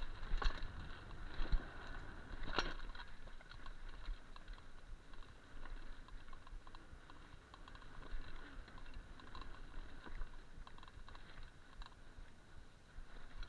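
Mountain bike riding fast down a dirt trail: a continuous clatter of small rattles and clicks from the bike over rough ground, with tyre noise and wind rumbling on the microphone. A few sharper knocks in the first three seconds.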